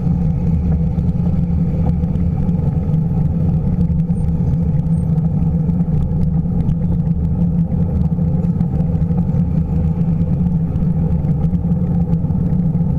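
Steady low rumble of wind buffeting the microphone of a camera mounted on a moving bicycle, mixed with road traffic on the avenue alongside.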